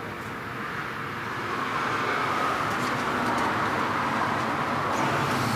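Carbureted V8 engine running steadily at idle: a low, even hum with hiss from the open carburetor. It gets a little louder about a second and a half in.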